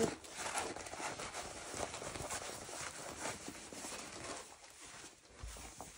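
Soft, irregular rustling and handling of a rolled poured-glue diamond painting canvas as it is rolled backwards to flatten it.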